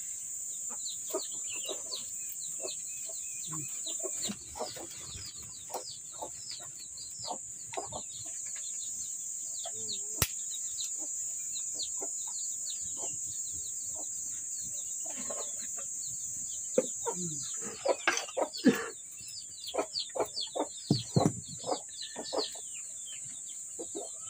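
Domestic chickens clucking and chirping over a steady high-pitched drone. A run of sharp cracks about three-quarters of the way through comes from dry twigs being broken and burning in the wood fire of a mud stove.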